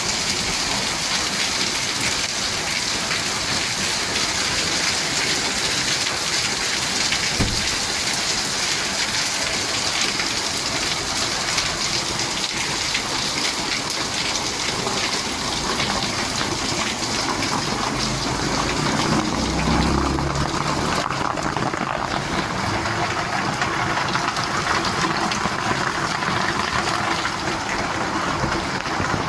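Heavy rain falling steadily, a dense, even hiss, with a low rumble about twenty seconds in.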